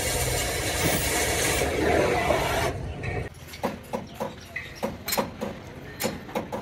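Gas cutting torch hissing steadily as it cuts through a truck's metal body panel. About three seconds in the hiss stops abruptly, giving way to a string of sharp, irregular knocks and clicks.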